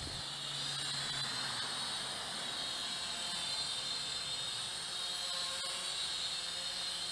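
Attop W10 toy quadcopter's gear-driven brushed motors and propellers whining steadily in flight, a high-pitched buzz.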